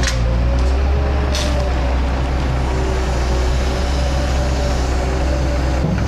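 Caterpillar M318D wheeled excavator's diesel engine running steadily under working load, with a faint hydraulic whine as the boom and grab swing. A brief hiss about a second and a half in.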